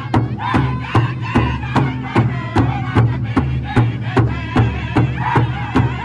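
Northern-style powwow drum group singing an intertribal song in high voices over a big powwow drum struck in unison, a steady beat of about two and a half strokes a second.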